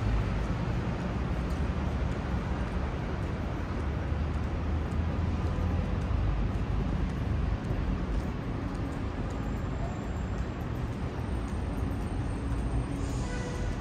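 Steady city street noise: traffic, mostly low in pitch, with no single event standing out.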